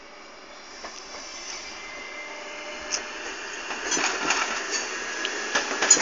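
An MS96 electric multiple unit approaching, its rolling noise growing louder. From about four seconds in, the wheels clack over rail joints more and more often.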